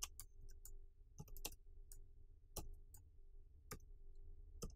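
Faint computer keyboard keystrokes: single sharp key clicks at irregular spacing, about nine in all, a couple coming in quick pairs, over a low steady hum.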